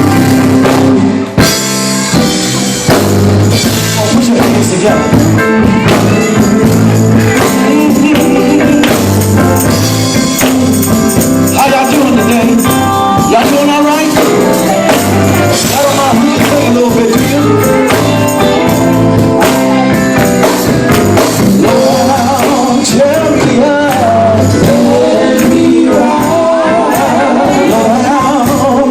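Gospel group performing: band music with a steady beat and voices singing.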